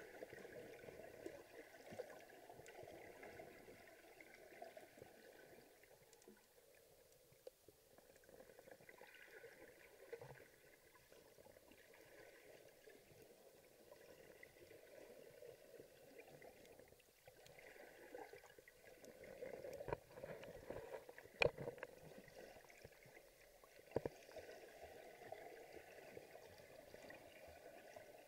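Faint underwater water noise picked up by a camera held just below the surface, with a few sharp clicks about three-quarters of the way through.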